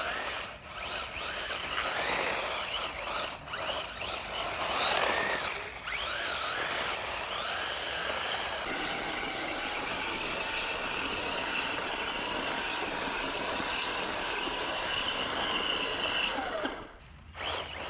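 WLtoys A979-B RC monster truck's electric motor whining up and down in pitch as it speeds up and slows, over the scrabble of its tyres on fine gravel. In the second half the whine holds a steadier pitch.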